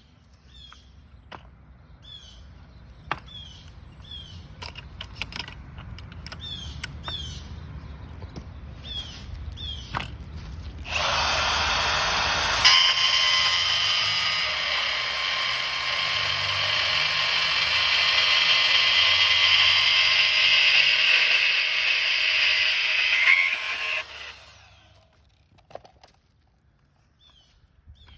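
Bandsaw blade cutting through sheet-metal Z-bar: after a low hum and a few handling clicks, the cut starts about eleven seconds in as a loud, steady, high-pitched grinding whine with ringing tones and lasts about thirteen seconds before stopping suddenly. Small birds chirp faintly in the quieter stretches.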